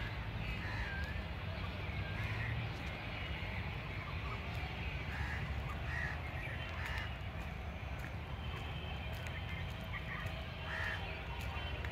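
Birds calling in short, scattered calls, several seconds apart, over a steady low background rumble.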